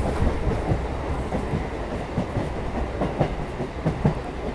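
Chennai EMU suburban local train running at speed, heard from inside the coach: a steady low rumble with its wheels clattering over the track.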